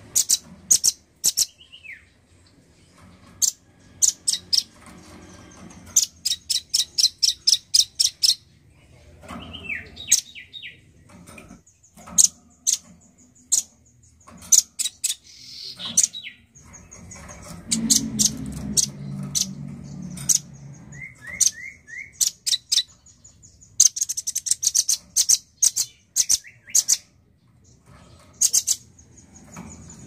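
Male velvet-fronted nuthatch calling in repeated runs of sharp, high chips, several a second, with a few short down-slurred notes in between.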